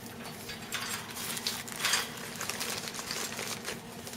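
Paper fast-food packaging crinkling and rustling in short, irregular bursts. The loudest burst comes about two seconds in.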